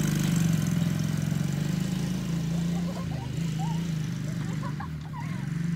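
Small youth ATV engine running steadily as it drives across the lawn, its note dipping about halfway through and then picking up again.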